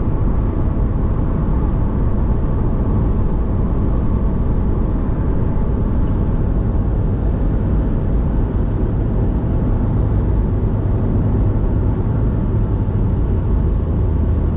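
Car driving at highway speed, heard from inside the cabin: a steady low rumble of road and engine noise.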